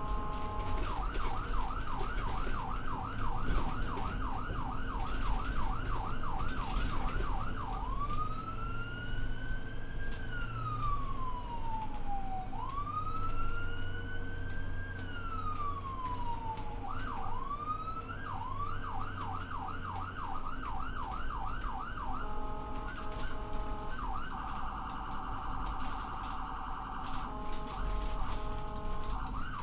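Ambulance electronic siren cycling through its tones: a fast yelp of about three sweeps a second, then two slow wails that rise and fall over about four seconds each, back to the yelp, then a steady pulsing two-tone and a very rapid warble near the end before the yelp returns.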